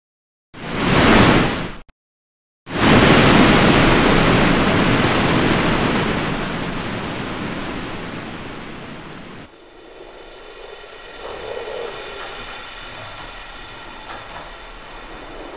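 Edited sequence of rushing noise: a short swell of noise that rises and falls, a moment of silence, then a loud rushing noise that starts suddenly and slowly fades, cut off abruptly about ten seconds in by a quieter steady drone carrying faint steady tones.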